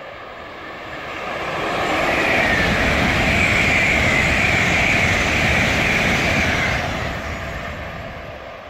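An LNER Azuma (Class 800/801) high-speed train passing at speed: a rush of wheels and air that swells, is loudest from about two to seven seconds in, then fades as the train draws away.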